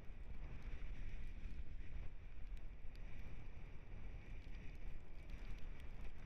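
Dog scooter rolling over a dirt track behind two running dogs: a steady rumble of tyres on the ground, mixed with wind buffeting the microphone.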